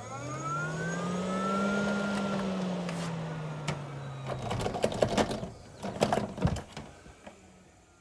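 Fan-Tastic roof vent fan's motor humming as its knob is turned. The hum rises in pitch, then eases down and stops about four and a half seconds in. A few sharp knocks and clicks follow.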